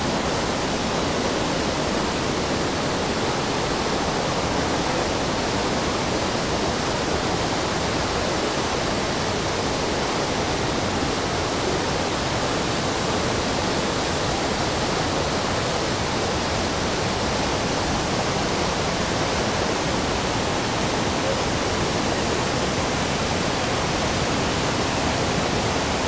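Waterfall: a steady, even rush of falling water that fills the whole sound.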